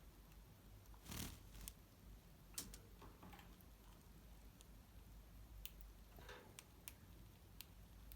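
Faint, scattered clicks and a few short rustles from pet Java sparrows moving about, with no calls.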